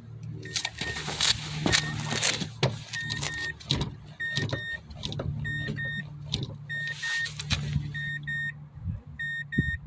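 Brake pedal pumped repeatedly by foot, with soft knocks, to build hydraulic pressure before the caliper bleeder is opened to let air out. Over it the car's warning chime beeps in quick pairs about once a second, above a steady low hum.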